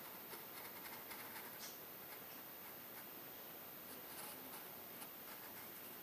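Graphite pencil scratching faintly on paper as lines are drawn, in short intermittent strokes.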